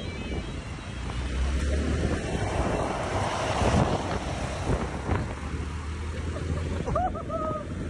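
Street traffic and wind on the microphone as a large GMC Sierra 2500HD pickup truck drives by. A steady low engine hum runs under a rush of road and wind noise that is loudest around the middle. A brief higher-pitched tone sounds near the end.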